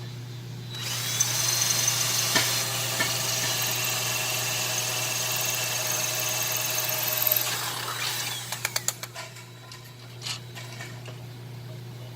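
Power drill running steadily, boring a hole through the top sign's frame and flapper, then winding down after about seven seconds. A quick run of clicks follows.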